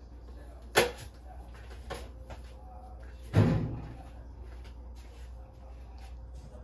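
Kitchen doors being handled: a sharp knock a little under a second in, two lighter knocks, then a heavier thud about three and a half seconds in as a cabinet or appliance door is shut.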